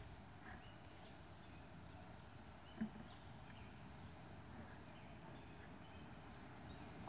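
Near silence: faint outdoor background, with one soft low knock about three seconds in.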